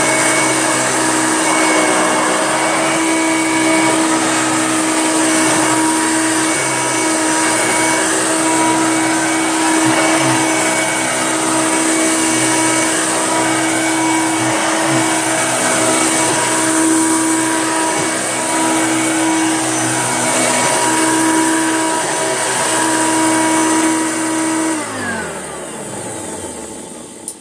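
Hoover Junior upright vacuum cleaner running steadily at full speed over carpet, then switched off about 25 seconds in, its motor winding down with a falling pitch.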